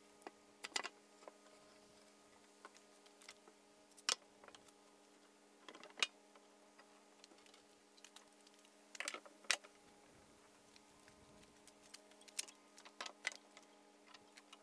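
Bar clamps clicking and knocking against a plywood box as they are set and tightened, in scattered short clicks, the loudest about 4, 6 and 9.5 seconds in.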